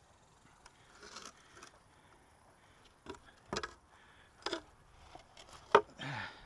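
Handling noise from magnet-fishing gear: a handful of sharp clicks and knocks, the loudest a little before the end, with a couple of short rubbing scrapes.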